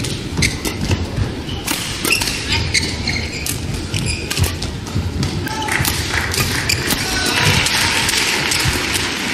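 Badminton doubles rally: sharp cracks of rackets hitting the shuttlecock in quick exchanges, with thuds of players' footwork on the court. Arena crowd noise builds over the last couple of seconds.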